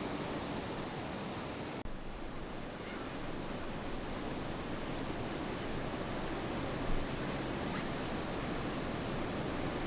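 Steady rushing noise of river water flowing around the waders, with one short knock about seven seconds in.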